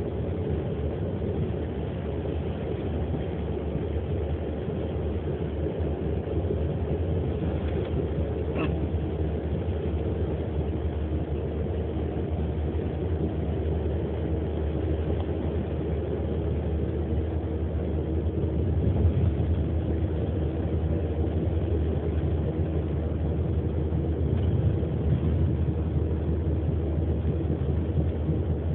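Steady engine and road rumble heard inside a car cabin, with one short sharp sound about nine seconds in.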